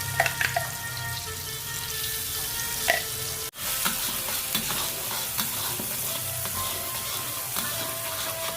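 Food frying in hot oil in a pan, a steady sizzle, with a few sharp clinks of a utensil stirring near the start and about three seconds in. The sound breaks off for a moment about three and a half seconds in, then the sizzling resumes.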